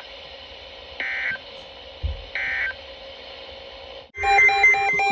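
Emergency Alert System end-of-message data tones: short bursts of shrill warbling data tone about a second and a half apart, over a steady radio hiss and hum. About four seconds in, a louder run of rapid, stepping electronic beeps starts.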